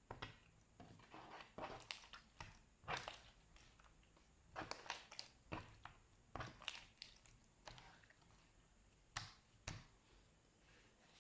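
Slime being squished and pressed, making irregular crackles and pops that come in quick clusters.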